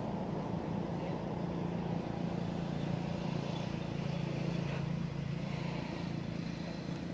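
A motor engine running steadily: an even low drone that holds one pitch throughout.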